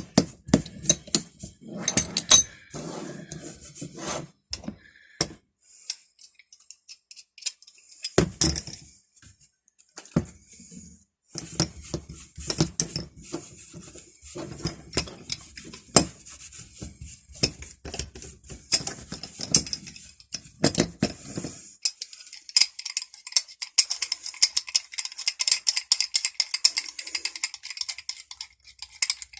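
Steel pipe wrenches being handled and set down, knocking and clinking against one another and the bench. From about two thirds of the way in, this turns into a continuous light rattling.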